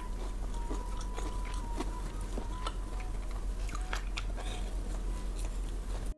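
Close-miked eating sounds: a person chewing by mouth with many wet smacks and crisp clicks, over a steady low hum. The sound cuts off suddenly at the very end.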